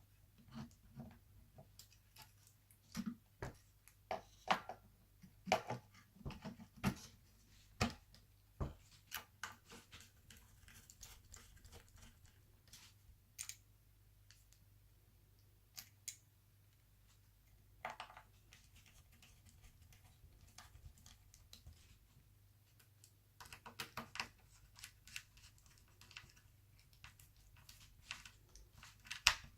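Faint, irregular clicks and taps of a laptop hard drive and its small parts being handled and fitted into the drive bay, in clusters early and again near the end.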